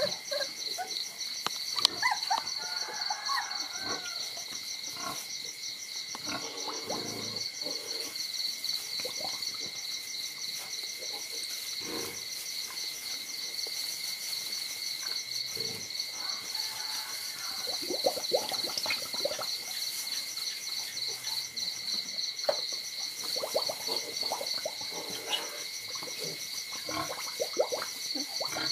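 Crickets chirping in a steady, rapidly pulsing chorus, with a few faint short squeaks scattered through it.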